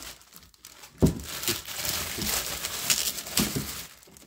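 Clear plastic packaging crinkling and rustling as it is pulled open and handled, with a sharp thump about a second in.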